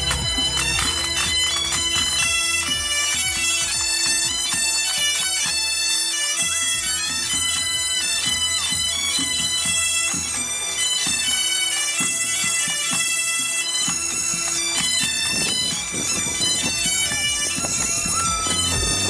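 Highland pipe band playing: bagpipes sounding a stepping chanter melody over steady drones, with drums beating under them.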